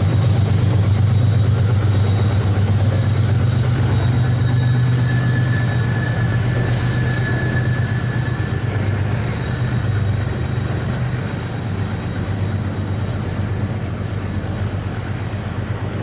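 Wabtec ES44ACi diesel-electric locomotives working under power at the head of an iron-ore train: a steady low engine drone that slowly fades. Around five to eight seconds in, a faint high wheel squeal sounds over the rolling train.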